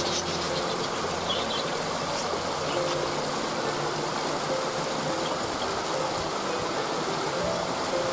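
Waterfall pouring in a steady, even rush of water, with a few short bird chirps in the first second or two.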